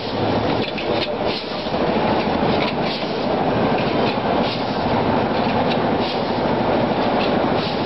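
Automatic small-bag packing machine running: a steady mechanical clatter with quick clicks and knocks from its mechanism.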